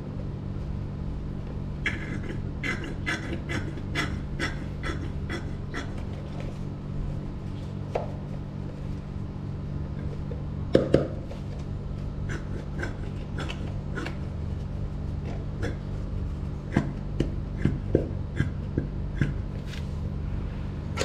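A plastic gear-oil bottle being squeezed by hand, its nozzle in the scooter's final-drive filler hole, giving many short plastic clicks and crackles over a steady low hum. Louder knocks come about halfway through and in a quick run near the end.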